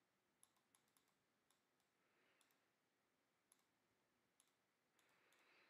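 Near silence, with a few very faint ticks.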